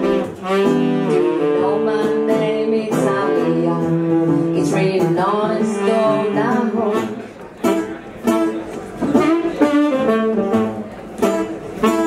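Live song: a woman's voice, saxophone and guitar playing together. About seven seconds in it thins to sparser plucked guitar notes.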